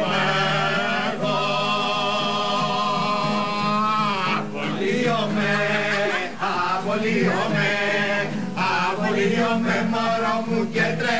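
Several men singing a song together to acoustic guitar, holding one long note from about a second in until about four seconds, then carrying on with quicker sung phrases.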